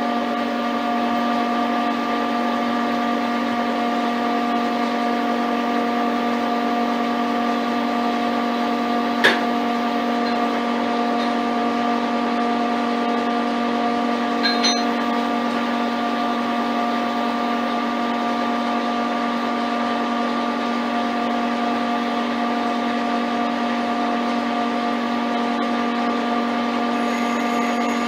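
Metal-turning lathe running steadily, with an even, unchanging hum of several held tones. There is a sharp click about nine seconds in and two small ticks about five seconds later.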